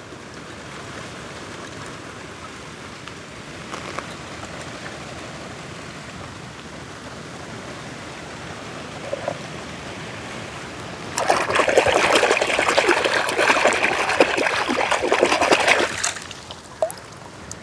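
Shallow water trickling steadily. About eleven seconds in it turns to louder splashing and gurgling for about five seconds, then drops back to the quieter trickle.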